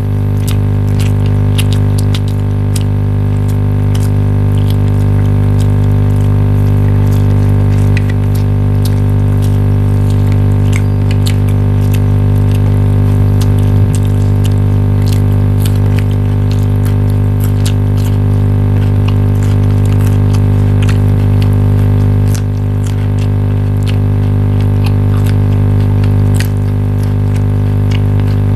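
A loud, steady low hum with evenly spaced overtones, with scattered faint clicks and taps over it.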